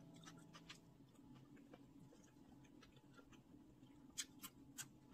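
Near silence with faint scattered clicks of a metal fork against a plastic plate and skewer as food is slid off, with three sharper clicks near the end.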